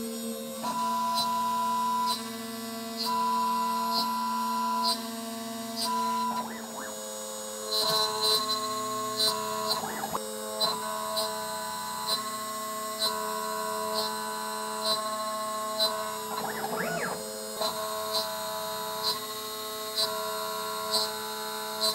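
Home-built CNC router at work on an aluminium plate: steady whining tones that switch pitch as the machine moves, a few quick rising-and-falling sweeps, and a light tick about once a second.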